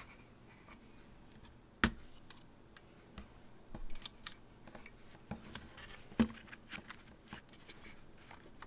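Scattered small clicks and taps of tools and parts being handled while an iMac is taken apart, with a sharper click about two seconds in and another about six seconds in.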